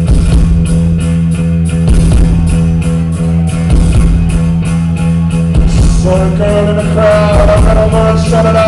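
Live rock band playing loudly: a steady low bass drone, electric guitar and regular drum hits. About six seconds in, a long held, slightly wavering high note comes in over them.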